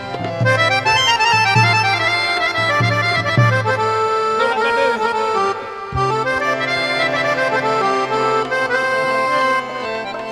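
Harmonium playing a melodic instrumental interlude in Punjabi folk music, with low drum strokes under it for the first few seconds.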